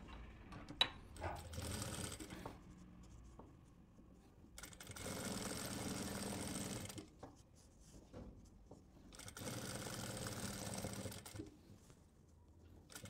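Industrial single-needle lockstitch sewing machine stitching a seam in three steady runs of about two seconds each, stopping between them as the fabric is guided. A single sharp click comes about a second in.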